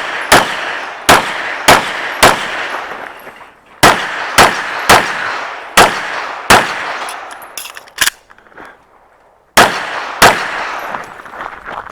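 Handgun shots fired in a rapid string, about twelve in all, each followed by a short ringing echo. They come in quick groups, with a brief pause about three seconds in and a longer one after about eight seconds before the last two shots.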